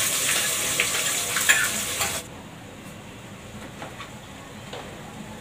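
Hot oil in a steel pot sizzling loudly as ground masala goes in, with a few spoon scrapes and clinks. The sizzle cuts off suddenly about two seconds in, leaving only faint utensil clicks.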